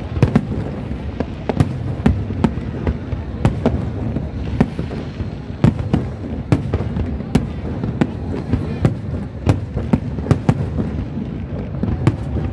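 Aerial firework shells bursting in a rapid, irregular string of sharp bangs, about two or three a second, over a steady low rumble.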